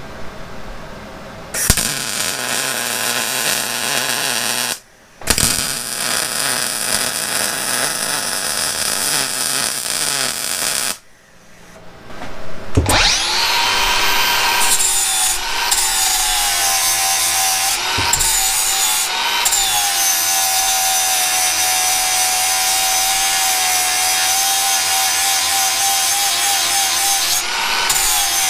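MIG welder crackling in two runs of several seconds while it welds the broken shaft of a Hobart industrial dough mixer back together. About halfway through, an angle grinder spins up with a rising whine and grinds the weld steadily, its pitch dipping briefly a few times.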